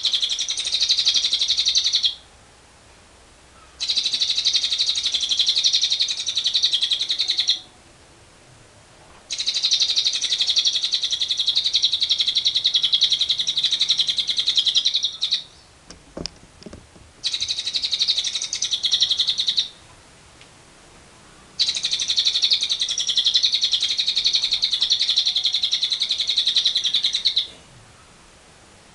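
Lovebird giving its long 'ngekek' chatter: rapid, high, unbroken trills that run for several seconds at a time. The bird sings five bouts with short pauses between them, and a few faint clicks fall in one pause about two-thirds of the way through.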